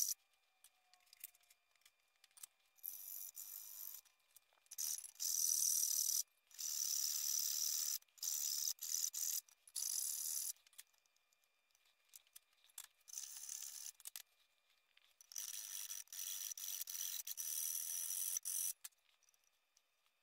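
Hand file rasping back and forth in a rectangular cutout in a thin sheet-metal enclosure, enlarging the hole to fit a power inlet. It comes as scraping strokes of about a second each with short pauses, and a quicker run of strokes near the end.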